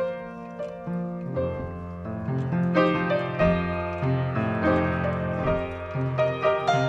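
Piano playing music with separate, repeated notes; low bass notes join in about a second and a half in, filling out the sound.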